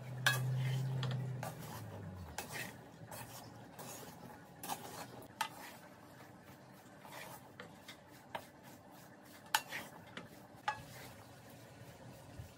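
Wooden spoon stirring and scraping a chicken mince, potato and pea filling in a stainless steel pan, with scattered knocks of the spoon against the pan. A low hum sounds for the first second or two.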